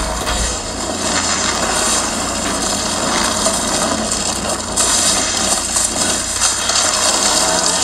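Sound effect of a large fire burning: a loud, steady rushing noise of flames.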